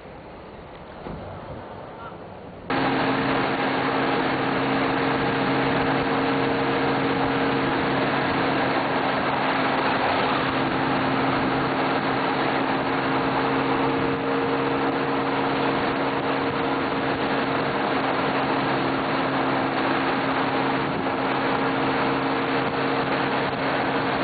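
Touring motorcycle cruising at steady highway speed: a steady engine drone under heavy wind rush on the microphone. It starts abruptly about three seconds in, after a short, quieter stretch.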